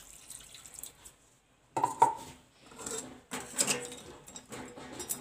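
A short pour of water into a pan of noodles, then from about two seconds in a metal spoon clinking and scraping against the pan in short bursts as the noodles are stirred.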